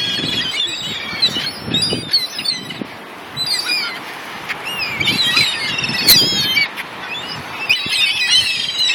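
A flock of gulls calling close overhead: many short, overlapping high calls, thickest about five to six seconds in and again near the end.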